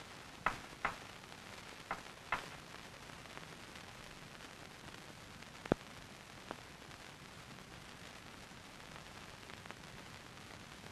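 Steady hiss of an old film soundtrack, broken by four sharp knocks in the first two and a half seconds and one louder single knock a little under six seconds in.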